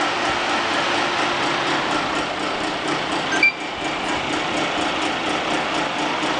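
Xbox game console running with a steady whir from its cooling fan, with a short high beep about three and a half seconds in.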